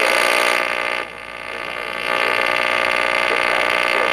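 Loud electronic alert tone, a harsh steady buzz made of many stacked pitches. It dips about a second in, then builds back to full level.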